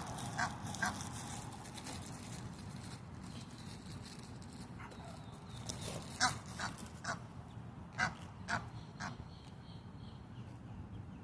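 Ducks giving short, scattered calls: a couple near the start, then a cluster from about six to nine seconds in, over a low steady background rumble.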